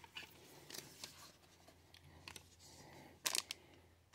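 Faint rustling and ticking of a trading card being handled and slid into a clear soft plastic card sleeve, with a louder crinkle of the sleeve about three seconds in.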